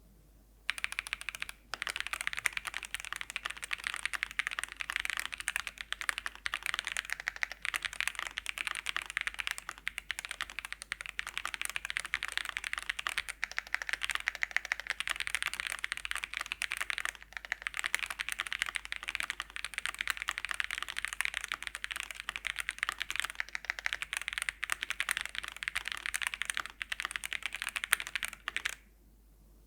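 Fast continuous typing on a QwertyKeys QK75 mechanical keyboard with stock Wuque Studio WS Brown tactile switches, aluminium plate and PBT keycaps. A dense run of keystroke clacks starts about a second in, with short pauses, and stops shortly before the end.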